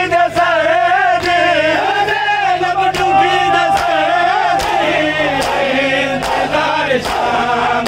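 A crowd of men chanting a mourning noha in unison, loud, with sharp strikes of hands on chests (matam) beating out the rhythm about once a second.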